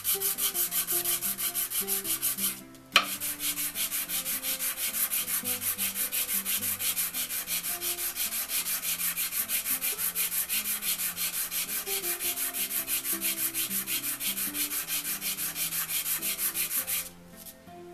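The face of a wooden marking gauge head being hand-sanded on 220-grit sandpaper laid over a flat stone slab, rubbed in quick, even back-and-forth strokes, about four a second, to true the face flat and square. The strokes pause briefly near three seconds and start again with one sharp click, the loudest sound here, then stop about a second before the end.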